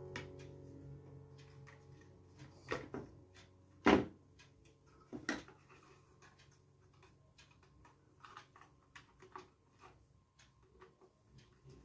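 Scattered clicks and knocks of hard objects being handled, the loudest a single sharp knock about four seconds in, with a trailing music note fading out at the start.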